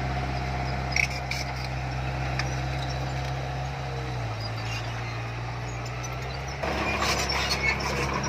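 Heavy diesel engine of earthmoving equipment running steadily, its pitch dropping slightly about four seconds in. From about six and a half seconds in it grows louder, with metallic clanking and rattling.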